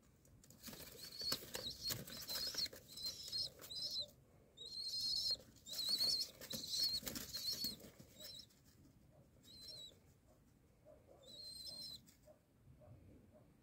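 Pigeon beating its wings in a run of short, rapid bursts with a high wavering squeak in them: a pigeon wing-slapping in defence against a cat pawing at it. After about seven seconds the bursts give way to two weaker flutters.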